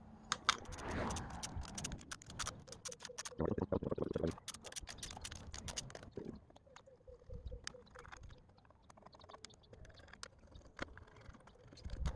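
A quick run of small, sharp clicks and taps, thinning to scattered clicks after about six seconds: hand tools and metal engine parts being handled on the bench.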